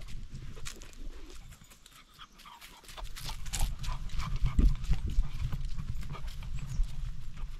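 Mini shar pei trotting on a dirt trail, heard from a GoPro strapped to her back: uneven footfalls and the knocking and rubbing of the harness-mounted camera against her body. It dips quieter for about a second a couple of seconds in, then picks up again more loudly.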